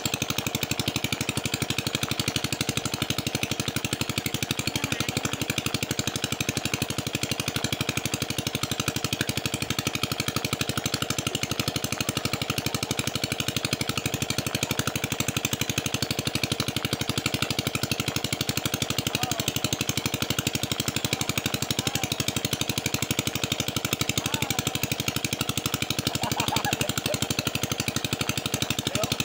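A small engine running steadily at a constant speed, with a fast, even putter.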